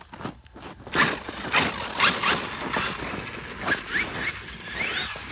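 Traxxas X-Maxx 8S RC monster truck's brushless electric motor whining up in short rising bursts as the throttle is blipped about five times, with its tyres spinning and sliding on frozen ground.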